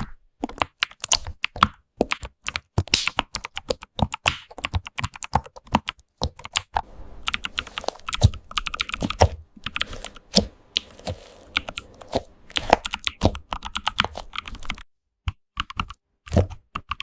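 Computer keyboard being typed on rapidly: a dense, irregular run of key clicks that thins to a few faint taps for about a second near the end, then picks up again.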